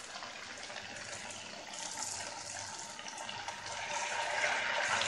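Steady sizzling of the spiced lentil, potato and mince mixture frying in a pressure cooker, then long-grain rice being poured in on top, a rushing hiss that grows louder in the second half.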